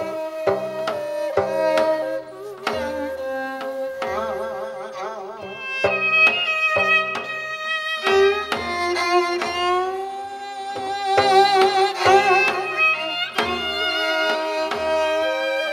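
Live recording of a Korean folk-song-style ensemble piece: a melody with wide, wavering vibrato over regular drum strokes and sustained instrumental tones.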